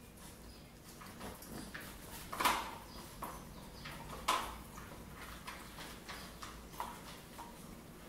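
Two small dogs eating kibble mixed with egg from plastic bowls on a tile floor: irregular clicks and knocks of bowls, teeth and claws, with two louder knocks about 2.5 and 4.3 seconds in.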